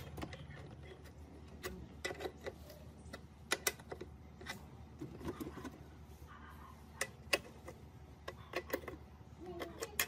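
Irregular sharp clicks and taps of small metal bolts, knobs and a wrench against an orange plastic horn speaker's housing and bracket as it is reassembled by hand, with a faint steady low hum underneath.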